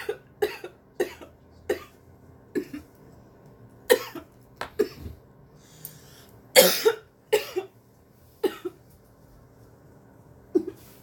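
A woman coughing in repeated short, sharp fits after inhaling a dab of cannabis concentrate from a glass dab rig. The longest and loudest cough comes a little past the middle.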